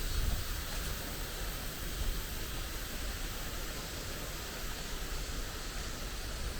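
Steady rushing outdoor noise with an uneven low rumble underneath.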